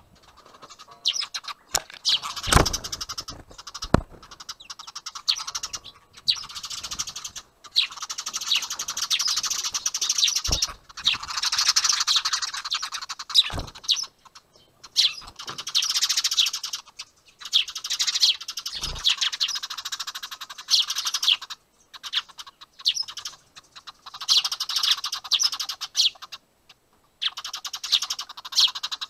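Eurasian tree sparrows chirping and squawking in rapid, dense runs, the agitated calling of a skirmish between sparrows at their nest box. The calling is broken by a few short pauses and a few dull knocks.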